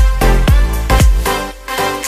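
Background electronic dance music with a steady beat, about two beats a second, over a deep bass line that drops out near the end.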